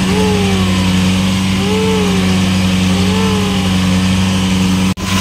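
Longtail boat's engine droning steadily under way at sea. Three short rising-and-falling tones sound over it, and the sound cuts out briefly near the end.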